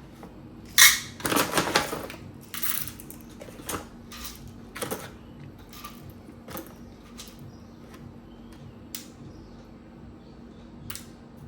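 Whole coffee beans poured into a dosing cup on a scale: a dense rattle about a second in, then scattered single clicks as a few more beans are dropped in to reach the dose.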